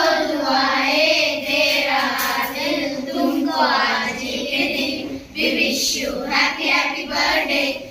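A group of children singing a birthday song together in unison, with long held notes and a short break about five seconds in.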